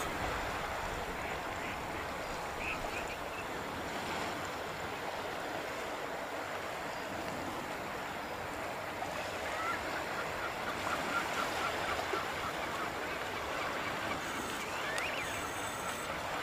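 Steady rushing shoreline noise of water and wind, with a few faint bird calls: a short one about three seconds in, a quick run of chirps past the middle, and a rising call near the end.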